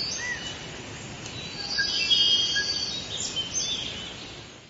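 Nature ambience of assorted bird chirps and short whistles over a steady hiss, swelling in the middle and fading out near the end.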